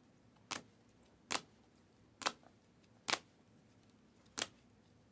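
Trading cards being handled one after another, each making a sharp click, five times at roughly one-second intervals.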